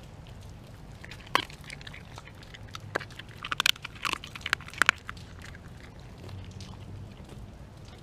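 A pit bull–husky mix dog biting and chewing a raw whole chicken, with sharp crunches as it bites through: one about a second in, then a quick run of them between about three and five seconds.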